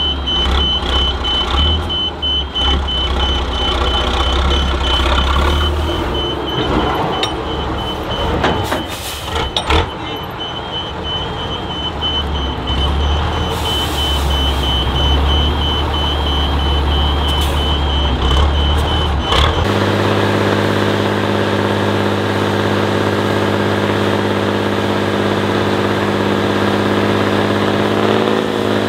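Offroad trial truck's engine rumbling while its reverse alarm beeps in even pulses, with a few knocks midway. About two-thirds through, the sound cuts to a truck engine idling at a steady pitch.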